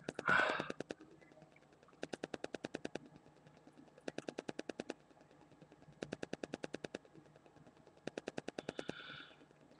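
A man breathes between sneezes: a short, fairly loud breath just after one sneeze, and a fainter breath near the end as the next sneeze builds. Between them, rapid clicking comes in regular bursts of about ten clicks a second, each burst lasting about a second and repeating every two seconds.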